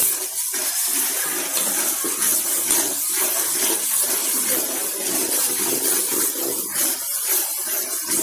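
Onions, green chillies and ginger-garlic paste sizzling steadily in hot oil and ghee in a large aluminium pot, stirred with a ladle as they sauté.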